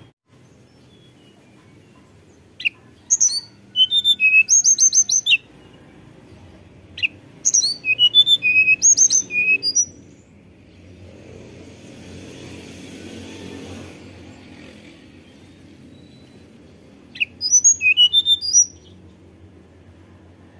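Hill blue flycatcher (tledekan gunung) singing in three bursts of quick, high-pitched whistled notes a few seconds apart, the last burst shorter.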